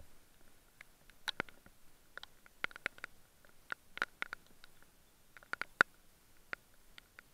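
Irregular small clicks and taps, handling noise as hands work fishing line and tackle free from a large bass held close to the camera. The sharpest click comes near the end.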